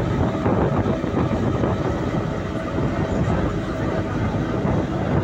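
Steady engine and water noise from a passenger boat under way, a continuous low noise with no distinct events.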